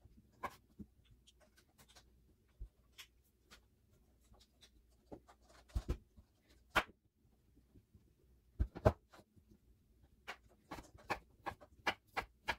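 Chef's knife cutting through a smoked sausage and knocking on a wooden cutting board: irregular sharp taps, a few each second, with a busier run of cuts near the end.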